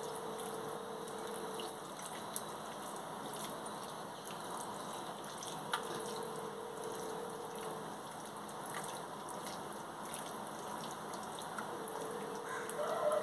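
Soft wet squishing of a hand kneading chicken pieces in a thick yogurt-and-spice marinade in a glass dish, over a steady background hiss. A faint hum comes and goes three times.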